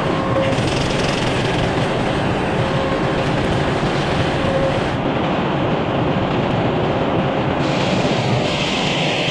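Sawmill running, its blade sawing through an oak log with a steady, loud mechanical noise.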